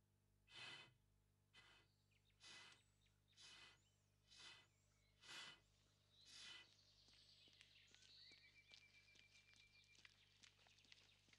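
A child's breathing, short hissy breaths about one a second, stopping about seven seconds in. Then faint outdoor ambience with light clicks and a short bird trill.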